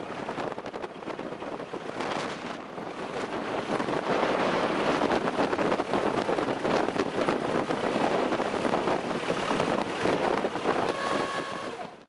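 Wind rushing over the microphone in an open Ford Model T on the move, with the car's running engine and road noise underneath; it grows louder about four seconds in.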